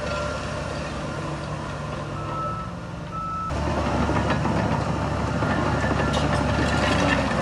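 Heavy construction machine's diesel engine running while its reversing alarm beeps. About halfway through the sound cuts abruptly to a louder engine with metallic clanks.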